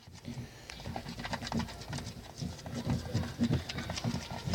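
Slime mixture being stirred fast in a container: a quick, uneven run of soft knocks, about three to four a second.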